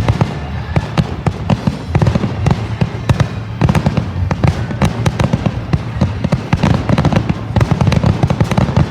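Fireworks going off in a rapid, unbroken barrage of sharp pops and bangs, several a second, with deeper booms underneath.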